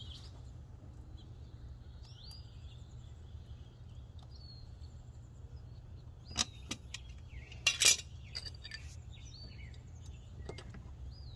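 Metal clinks of big pliers working a brake caliper while its piston is pushed back in: a few sharp clicks about six and a half seconds in, the loudest just before eight seconds, and one more near the end. A steady low rumble and birds chirping run underneath.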